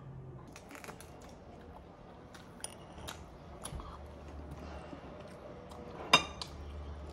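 Scattered light clinks of cutlery against dishes, with one sharp ringing clink about six seconds in.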